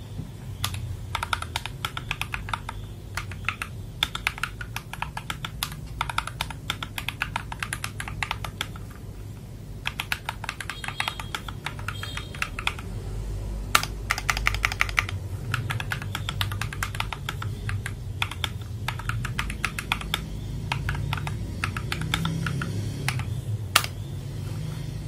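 FL Esports MK870 mechanical keyboard being typed on rapidly in bursts of key strokes, as a sound test of its freshly fitted switches. Its sound is deep, warm and fairly loud.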